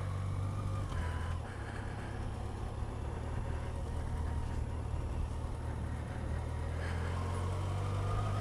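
Motorcycle engine running steadily while riding, heard from the bike, its pitch rising near the end as it speeds up.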